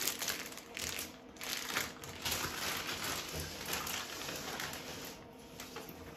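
Plastic bag crinkling and rustling as it is pulled off a shower head, busiest in the first couple of seconds and dying away after about five seconds.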